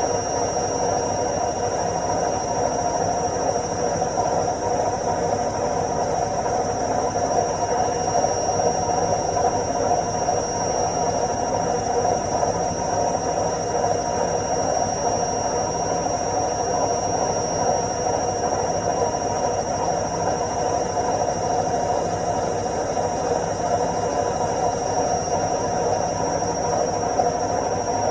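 Washing machine on its spin cycle: a steady, unchanging whir and rumble with a thin high whine over it.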